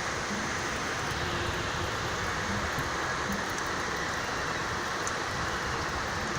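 Storm rain falling steadily, an even hiss with no thunder clap.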